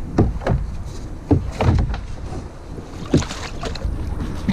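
A sit-on-top fishing kayak being paddled: several sharp knocks and short splashes as the paddle dips into the water and bumps the plastic hull, over a steady low rumble.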